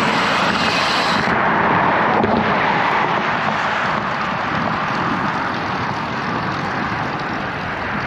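Steady rushing wind and road noise picked up by a bike-mounted camera while riding on a road, with car traffic mixed in.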